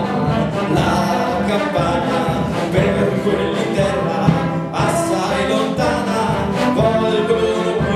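Wind band playing a hymn, with a man's voice singing over it through a microphone and PA.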